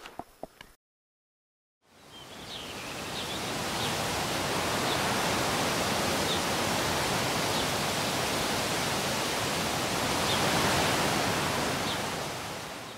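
A steady rushing noise, like running water or wind, fades in after a moment of silence, holds evenly and fades out at the end. A few short, faint high chirps sound over it.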